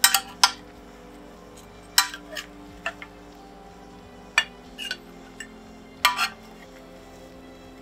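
Metal serving spoon clinking and scraping against a glass baking dish and a plate as baked stuffing is scooped out: a handful of short, separate clinks. Quiet background music runs underneath.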